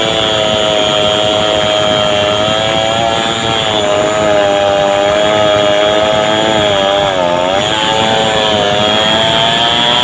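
Two-stroke chainsaw running at high revs, cutting into a thick bendo (Artocarpus) trunk. The engine note sags briefly under load about seven seconds in, then recovers.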